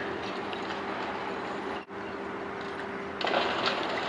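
A crane's engine running with a steady hum during wrecking-ball demolition of a concrete building; about three seconds in, a louder crackling clatter of broken concrete and debris falling joins it.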